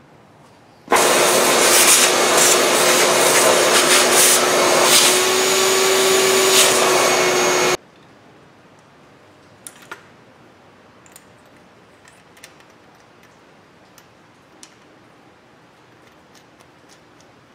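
A power drill runs steadily for about seven seconds, drilling into the Ford V10 cylinder head through a clamped drill-guide template at the exhaust-manifold bolt holes, then stops abruptly. A few light clicks of tool handling follow.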